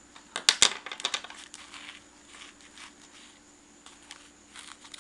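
Small objects being handled: a cluster of sharp clicks and knocks about half a second in, then lighter scattered clicks and rustling.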